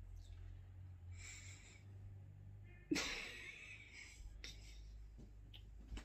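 A woman's stifled laugh: a sudden breathy snort of laughter through the hand over her mouth about three seconds in, fading over about a second. A softer breath comes a second or so before it.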